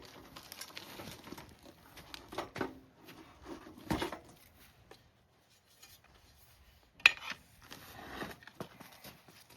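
Irregular knocks, clanks and rattles of a hand truck being worked under a foundry flask and moved, with a sharp clank about seven seconds in as the loudest sound.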